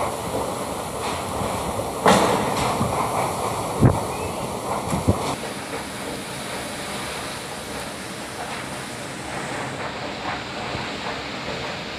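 Cyclone wind blowing hard and steadily, buffeting the microphone. It swells into a strong gust about two seconds in, with two sharp thumps around four and five seconds in, then settles to a steadier rush.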